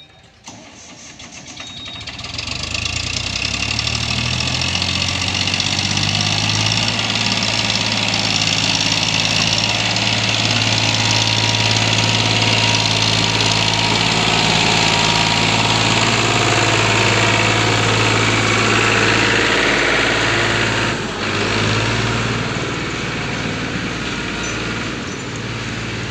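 Diesel farm tractor engine revving up over the first few seconds, then running hard and steady under load as it hauls a trailer heaped with soil up a dirt slope, easing briefly near the end.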